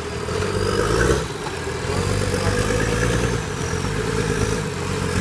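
Engine of a modified off-road 4x4 running at low revs as it crawls over roots on a forest trail, the revs rising briefly about a second in and then settling back.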